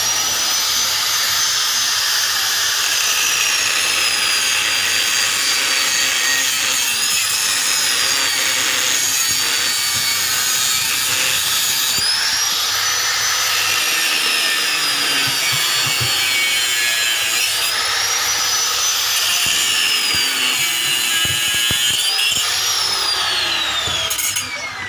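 A high-speed electric power tool running under varying load: its whine sags and recovers in pitch several times, then it is switched off near the end and its whine falls away as it spins down.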